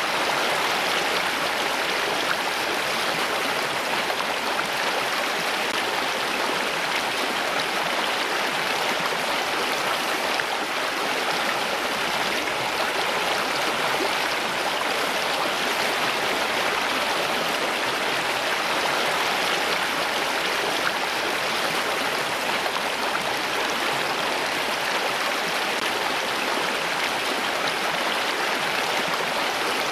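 Running water rushing steadily and evenly, without pause or change.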